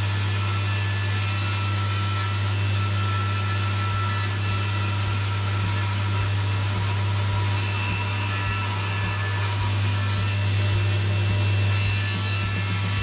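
Table saw running while its blade shaves down a wooden dowel that a cordless drill spins inside a homemade table-saw lathe jig. A steady deep hum runs under the continuous noise of the cut.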